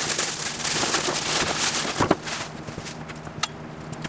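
Cardboard box and packaging rustling and crinkling as they are handled, with scattered clicks and knocks; the rustling dies down about two and a half seconds in, leaving occasional light knocks.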